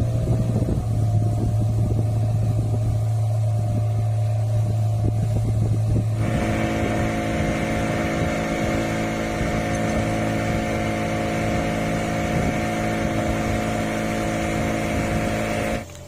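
Small wooden fishing boat's motor running steadily underway; its tone changes about six seconds in, becoming fuller and brighter.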